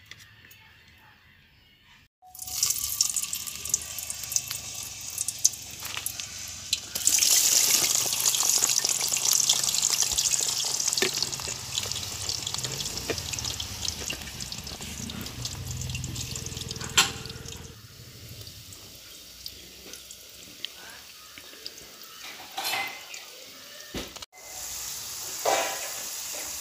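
Parboiled potato fingers sizzling as they deep-fry in hot oil in an aluminium kadai. The sizzle sets in after a couple of seconds and grows louder about seven seconds in.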